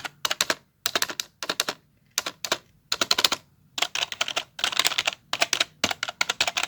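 Typing on a keyboard: quick runs of key clicks in bursts of about half a second to a second, separated by short pauses.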